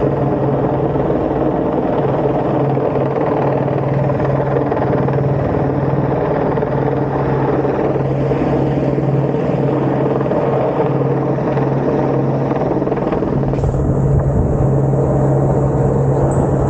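Airbus H125 Squirrel helicopter running close by: a steady rotor beat and turbine drone. It grows a little louder and windier about thirteen seconds in, as gusts buffet the microphone.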